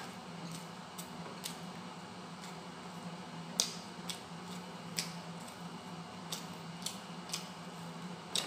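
Eating sounds: crisp fried fish torn apart by hand and chewed, giving scattered sharp crackles and small clicks at irregular intervals over a steady low hum.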